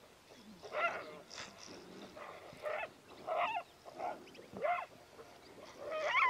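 Ethiopian wolves giving a series of short, high yelping calls, roughly one a second, some with a quick rise or fall in pitch and the loudest near the end: the excited alarm yelps of the pack mobbing intruders at its den.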